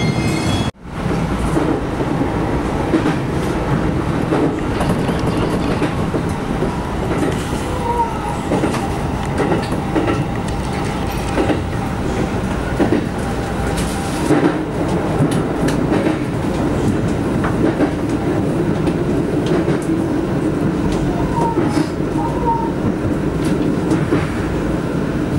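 Running noise of an electric commuter train heard from inside the carriage: a steady rumble of wheels on the track with scattered clicks from rail joints and points.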